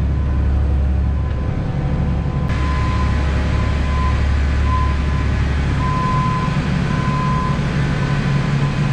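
A vehicle engine running steadily with a low, even hum. A few short high beeps sound around the middle.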